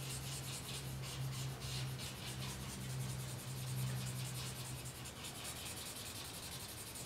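A large paper blending stump scrubbing charcoal into drawing paper in quick repeated strokes, a soft scratchy rubbing. A steady low hum runs underneath and stops about five seconds in.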